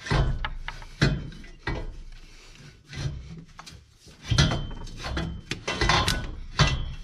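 A metal exhaust header knocking and scraping against the engine and hoses as it is worked down into a truck's engine bay: irregular clunks about a second apart, with rubbing and scraping between them.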